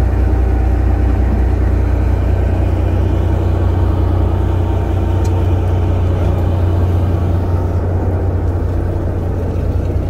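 Fishing boat's engine running steadily, a constant low hum.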